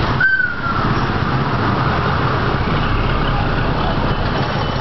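Steady din of street traffic with a low engine rumble. About a quarter second in, a short high tone slides slightly downward.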